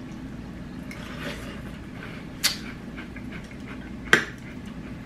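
A spoon clicking twice against a cereal bowl, sharply and briefly, about two and a half and four seconds in, over a low steady room hum.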